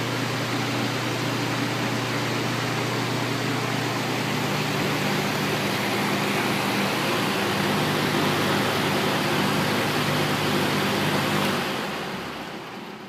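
Belt-driven box fan with a 1/8 hp Marco shaded pole motor running at speed: a steady rush of air over a low motor hum. Near the end the sound fades away as the fan winds down.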